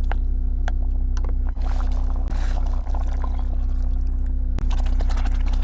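Steady low drone of an idling engine, with a few light clicks and knocks scattered through it.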